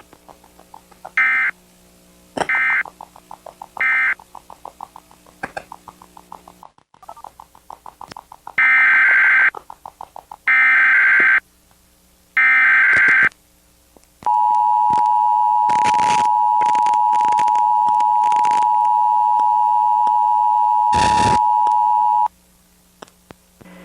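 Emergency Alert System tones: three short buzzy data bursts of the end-of-message code, then three longer buzzy SAME header bursts about two seconds apart, then the two-tone attention signal held steady for about eight seconds with a few clicks across it.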